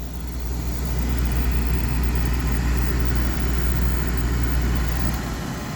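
Beckett AFG oil burner running just after lighting off, once the delayed oil valve has opened following the pre-purge: a steady rumble of flame and burner fan that builds over the first second, then holds.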